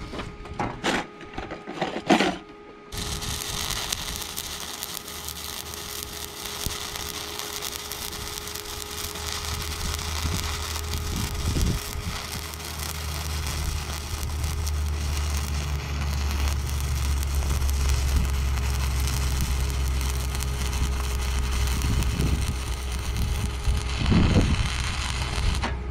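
Electric arc welding on steel: a few knocks, then the arc strikes about three seconds in and crackles and sizzles steadily for some twenty seconds, with a low hum beneath it, and stops shortly before the end.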